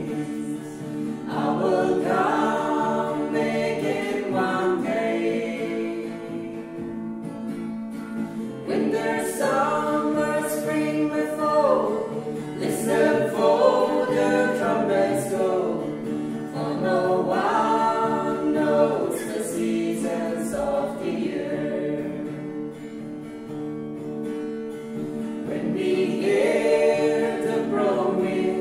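A small mixed group of men's and women's voices singing a gospel song in harmony, accompanied by acoustic guitar.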